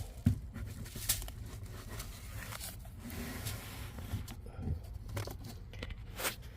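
Handling noise as a cabin air filter is pushed into its plastic housing: light rustling and scraping, with a few short knocks.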